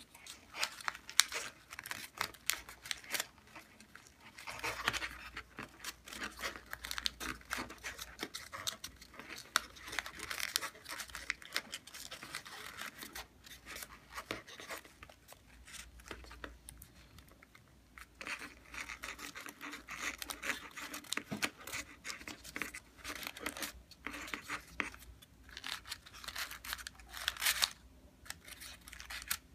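Folded paper units of a modular origami lotus rustling and crinkling as hands bend and shape the petals, made up of many small, crisp, irregular clicks and scrapes, with a short lull a little past halfway.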